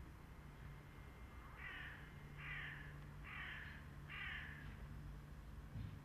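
A crow cawing four times in an even series of harsh calls, over a faint steady low hum.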